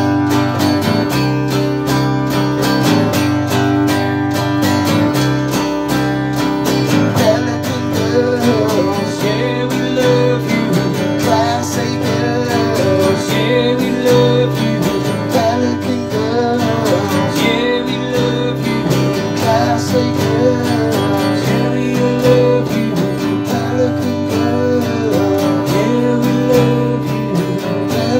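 A rock band plays an instrumental passage: a strummed acoustic guitar, an electric bass and a drum kit keep a steady beat, the bass changing note about every two seconds. A wavering melody line rides on top from about seven seconds in.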